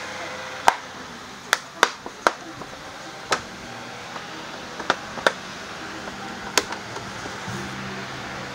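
Plastic body panels of a scooter being handled and fitted back on: about eight sharp clicks and knocks of plastic at irregular intervals, with lighter taps between. A low steady hum begins near the end.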